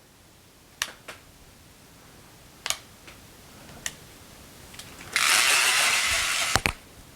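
A few handling clicks, then a hairdryer switched on at its highest setting, blowing with a loud even hiss for about a second and a half before it is clicked off.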